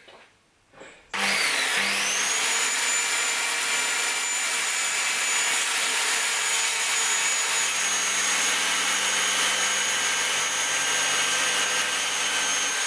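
Corded circular saw switched on about a second in, its motor whining up to speed and then cutting steadily through a laminated chipboard worktop. A lower hum joins about two-thirds through, and the saw stops at the very end.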